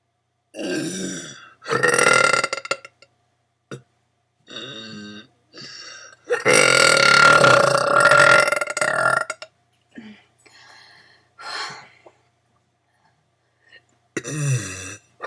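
A girl burping on purpose, a string of about nine burps of different lengths, some short, the longest held for about three seconds midway.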